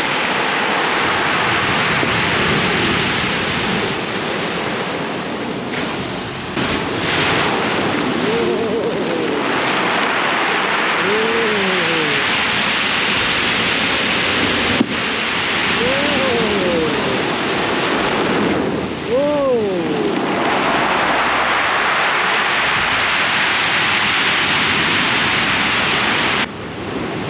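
Ocean surf breaking and washing up a sandy beach at high tide: a loud continuous wash of waves that eases briefly between sets. A few short rising-and-falling calls sound over it now and then.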